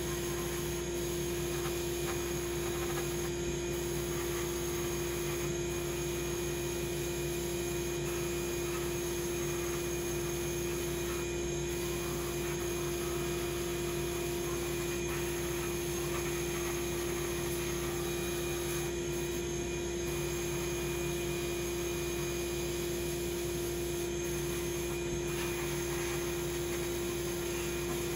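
Glass bead blasting an aluminum wheel in a blast cabinet: a steady hiss of compressed air and glass bead media striking the metal, unbroken, over a steady hum.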